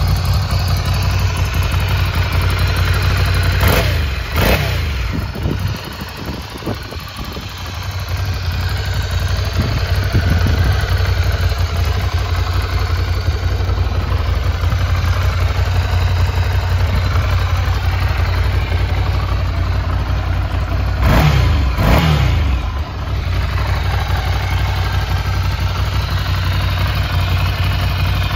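Ducati Monster 797's air-cooled L-twin engine idling, blipped twice about four seconds in and twice more about twenty-one seconds in, each blip a short rise and fall in revs.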